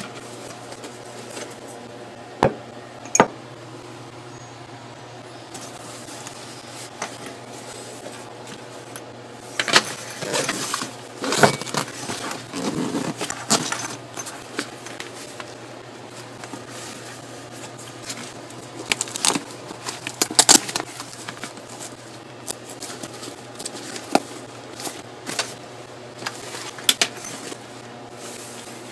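Handling noise from a nylon camera bag and a mug being moved inside it: scattered clicks and knocks, with two busier spells of rustling and clatter, over a steady low hum.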